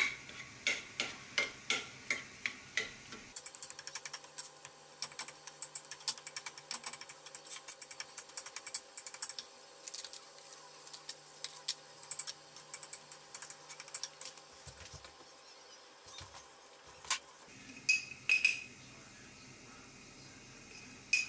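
A metal utensil clinking and tapping against a glass baking dish while steamed baby potatoes are crushed and mixed: a run of sharp clicks, about two to three a second at first, growing denser in the middle, with a few ringing clinks near the end.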